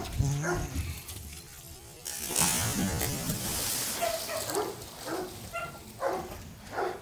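Water splashing in a pool as a dog swims, a burst of splashing about two seconds in. Then several short, high dog yips.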